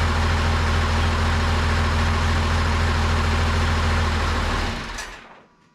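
John Deere 3155 tractor's six-cylinder diesel engine running steadily, freshly fitted with six new injectors and started again after repairs; the sound dies away about five seconds in.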